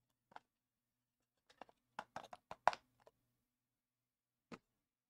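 A few faint, sharp clicks and taps from trading cards and their packaging being handled: one just after the start, a quick run of several in the middle, and a last one near the end.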